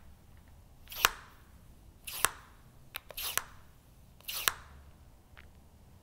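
Mountain-bike fork damper cartridge stroked by hand four times, about once a second. Each stroke is a short hiss of oil flowing through the damper and ends in a sharp click. It is a clean, clear breathing sound with no slurping: the sign of a properly serviced cartridge with fresh, intact oil.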